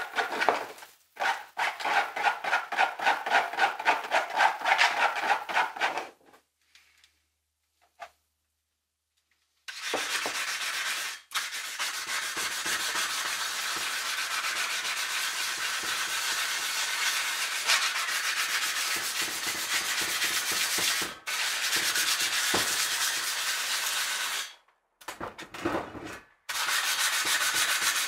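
Sandpaper rubbed by hand over a welded metal fitting's flange through wet epoxy: quick back-and-forth scratching strokes in several stretches, broken by short pauses and one longer pause early on.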